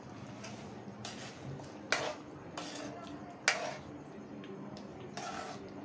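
A metal spoon stirring paneer cubes through thick gravy in a metal kadai, scraping along the pan, with two sharp clinks of spoon on pan about a second and a half apart.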